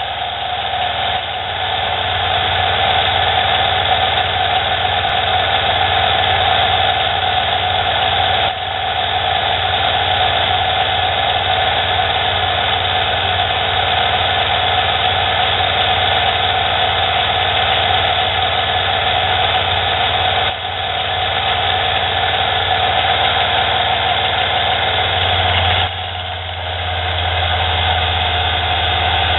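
Mini lathe running, its cutting bit turning down a half-inch mild steel bar: a steady machine whine with an even hiss above it. The sound dips briefly twice, and a deeper hum grows louder near the end.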